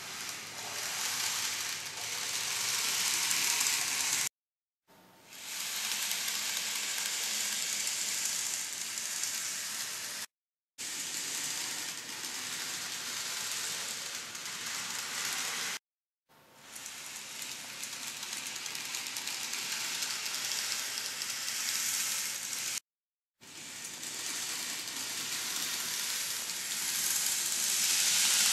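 Bandai B-Train Shorty 381-series model train on its newly assembled motorised power unit, running on N-gauge track: a steady hissing rattle of motor, gears and wheels that swells as the train comes close. It cuts to silence four times, briefly.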